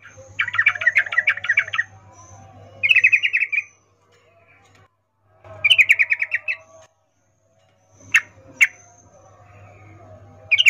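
Yellow-vented bulbul (trucukan) calling in quick chattering phrases of rapid notes, each burst about a second long and repeated several times, with two sharp single notes about three quarters of the way through. The title presents it as a female's mating call to a male.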